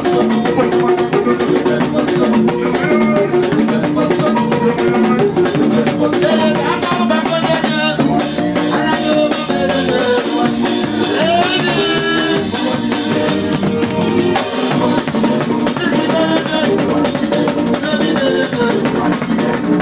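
Live band music dominated by a drum kit, with held and wavering melody notes over it, loud and continuous.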